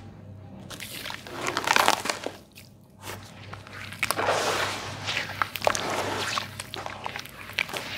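Hands squeezing and kneading wet sand-cement paste in a basin of water: gritty squelching and crunching with small splashes and sharp crackles. There is a spell of it about a second in, a short lull, and then steadier working from about four seconds.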